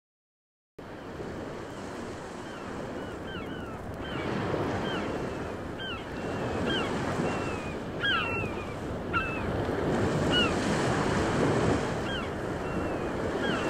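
Sea surf washing steadily and slowly growing louder, with short, hooked bird calls repeated over it; it starts under a second in after a moment of silence.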